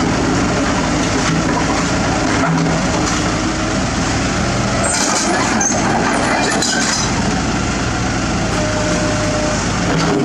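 Kobelco SK75 excavator's diesel engine running steadily under load while its hydraulics swing the boom and dig the bucket into soil, with a short scrape about five seconds in as the bucket meets the ground.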